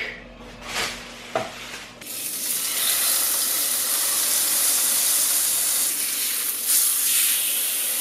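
Steak searing in a hot cast-iron skillet: a loud, steady sizzle that starts abruptly about two seconds in.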